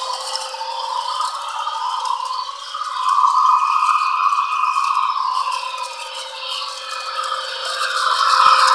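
Model freight train running on its track: a continuous rattle of wheels and cars with a motor whir, growing louder near the end as the train comes close again.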